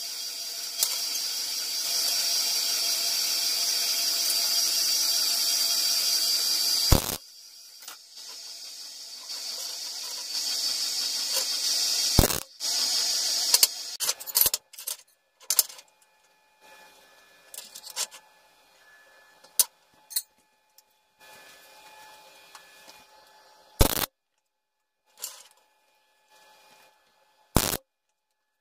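A metal-cutting bandsaw running steadily through steel for about seven seconds, then cutting off abruptly. After that come scattered metallic clinks and taps as steel pieces and a spring clamp are handled on a steel table, with a few louder knocks.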